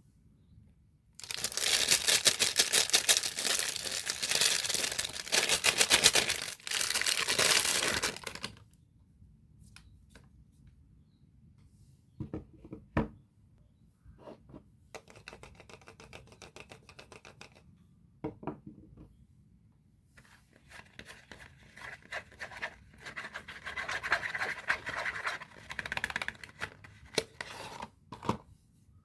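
Soap packaging being torn open and unwrapped by hand: a long stretch of dense tearing and crinkling, a few light taps in the middle, then more crinkling of wrapper near the end.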